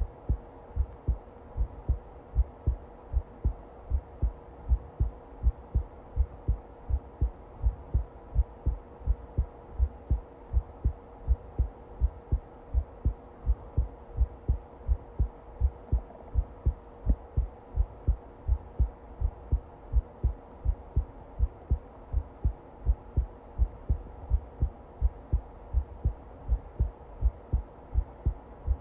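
Heartbeat, a steady regular rhythm of low thumps, with a faint steady hum beneath it.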